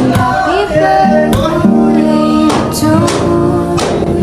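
Background music: a song with guitar, a sung melody and a steady beat.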